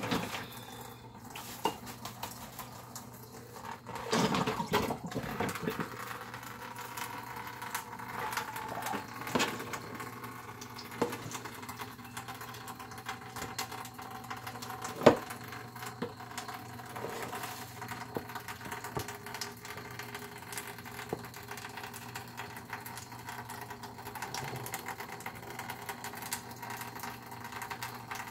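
Tap water running into a stainless-steel sink, with scattered knocks and clatter of things being handled and rinsed, and one sharp knock about halfway through. A steady low hum sits underneath.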